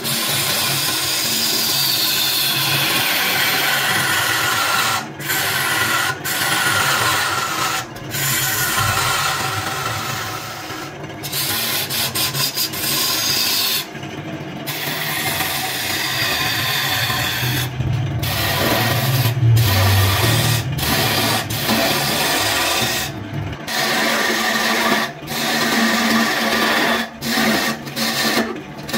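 Wood lathe spinning a wooden blank while a turning chisel cuts it: a steady, loud scraping hiss of the tool on the wood over the lathe's running hum. It breaks off in several short gaps where the tool lifts off.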